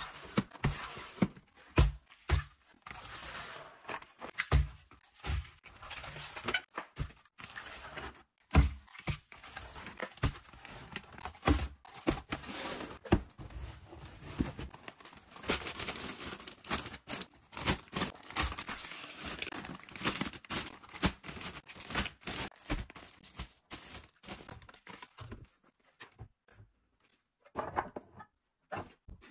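Groceries being put away on pantry shelves: packaging crinkling and rustling, with irregular knocks and thuds of boxes and cans being set down on the shelves.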